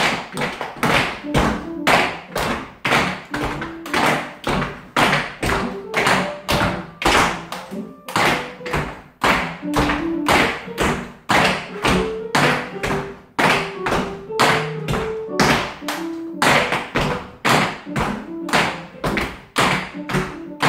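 Dance music with a steady beat of sharp taps, about two to three a second, over held notes.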